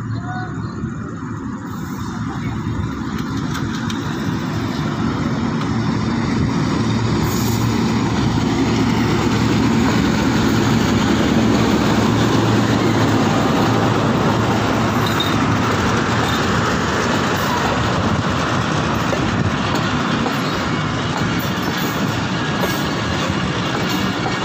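Diesel-hauled passenger train accelerating past at close range: the locomotive's engine working under power, then the coaches' wheels running over the track. It is a steady rumble that builds to its loudest about halfway through and stays loud.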